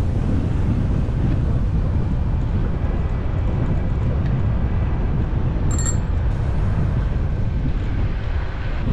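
Wind buffeting an action camera's microphone while riding a bicycle, a steady low rumble with the faint whir of the moving bike. About six seconds in there is a brief high-pitched squeak.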